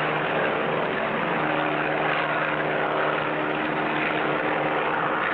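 A propeller biplane's engine running steadily in flight, an even drone with no change in pitch or level.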